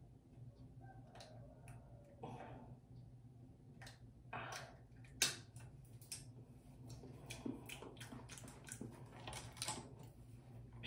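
Quiet room tone with a steady low hum and scattered small clicks and taps, the sharpest about five seconds in.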